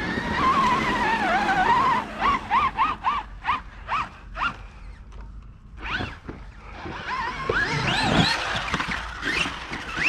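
Traxxas RC monster truck's brushless electric motor whining under throttle as the truck spins its tyres in snow. The whine wavers, then pulses in short throttle blips about two a second, drops away briefly, and climbs sharply near the end.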